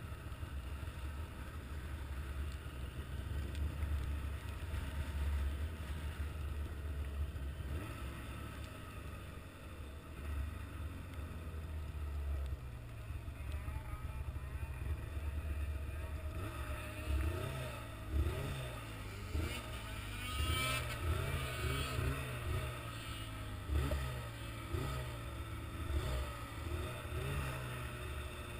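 A vehicle engine rumbles low and steady, then from about halfway in it is revved up and down again and again, roughly once a second, with a brief hissing burst a few seconds later.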